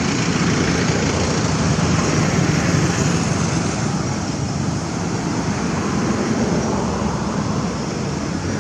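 Steady rumble and hiss of road traffic, swelling slightly about two to three seconds in and then easing off.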